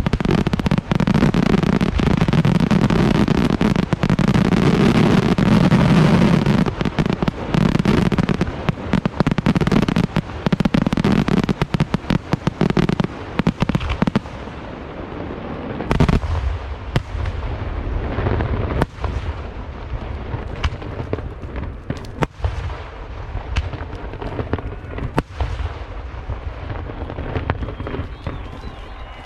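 Aerial fireworks in a closing barrage: a dense, continuous mass of shell bursts and crackling for about the first half. It then thins out to scattered single bangs with echoing tails, one loud bang coming about sixteen seconds in.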